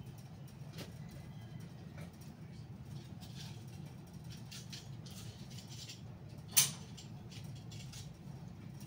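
Steady low background hum with faint scattered ticks, and one sharp click about six and a half seconds in.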